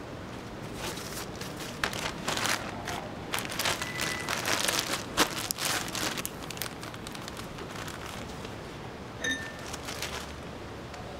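Crinkling and rustling of handled plastic packaging with sharp clicks and taps, busiest in the first half. Two short high tones sound, one about four seconds in and one near the end.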